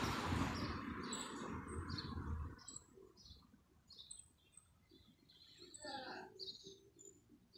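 Small birds chirping, short high chirps repeating a few times a second. A rushing noise with a low rumble fades out after about two and a half seconds.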